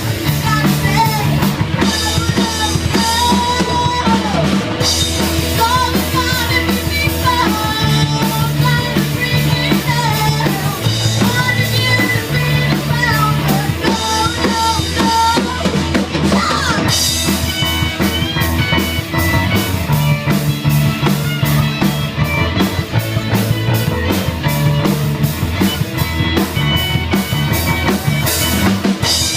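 Small rock band playing live: drum kit keeping the beat under a moving bass line, with a sliding lead melody over the top through the first half.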